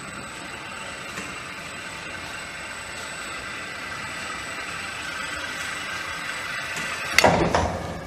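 Automatic feeding robot driving along, its motors giving a steady mechanical hum that slowly gets louder. About seven seconds in there is a short, loud clattering burst that stops just before the end.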